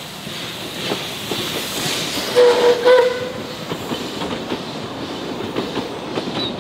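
Narrow-gauge steam train running, with a steady clicking rattle from the wheels and a short steam whistle blast about two and a half seconds in.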